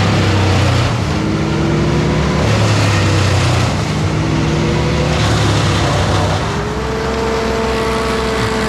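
Engine of a working machine running steadily, its pitch shifting a few times and settling higher about two-thirds of the way through.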